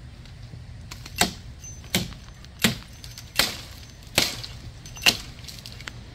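A hatchet chopping into a green Osage orange branch overhead: six sharp strikes into the wood, a little under a second apart.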